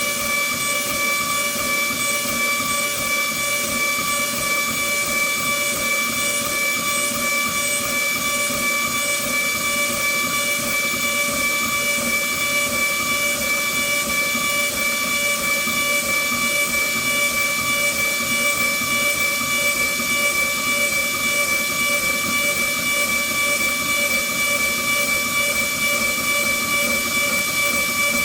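CNC router spindle running at constant speed while milling padauk wood keycaps: a steady high whine with several pitches over an even hiss, unchanging throughout.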